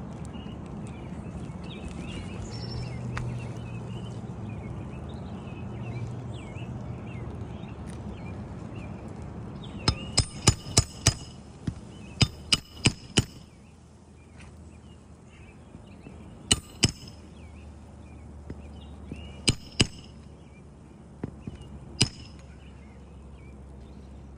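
Hammer striking a Roof Snake nail-setting bar to drive roofing nails back in under a 3-tab shingle: sharp metallic taps, a quick run of five about ten seconds in, then four, then two pairs and a last single tap. Birds chirp before the hammering starts.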